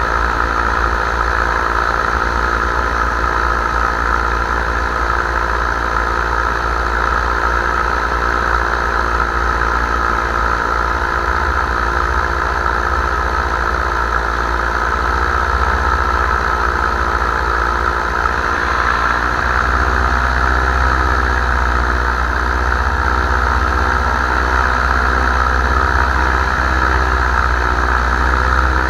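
Paramotor engine running steadily in flight, with a heavy low rumble underneath and a hiss above. About two-thirds of the way through, the engine note shifts slightly and the rumble grows.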